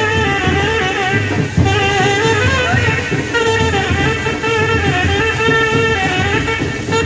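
Trumpet playing a Hindi film-song melody with wavering, sliding notes over a band's accompaniment and a steady low drum beat.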